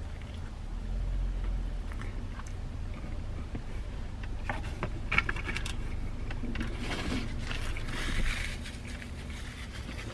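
A person chewing a big mouthful of crispy fried chicken sandwich, with small wet mouth clicks and a few louder bursts of chewing and breathing, over a low steady hum inside a car.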